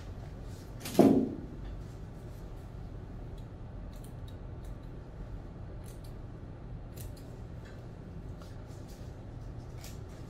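Grooming scissors snipping dog hair around the face: short, sharp clicks at irregular intervals. A loud bump about a second in.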